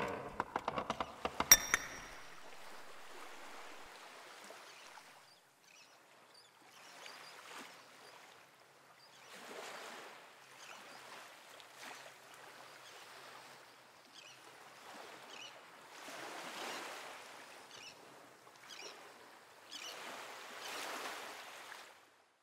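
Quiet waves washing on a shore, the surf sound swelling and fading every two to three seconds. It opens with a quick run of clicks, the sharpest about a second and a half in.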